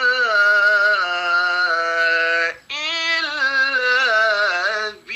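Quranic recitation by a male qari: one voice chanting in long, melismatic phrases with wavering ornamented notes. He breaks for breath about two and a half seconds in and again near the end.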